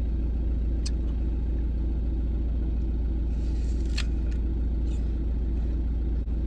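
Steady low rumble of a running vehicle, with a few light clicks and a short hiss about four seconds in.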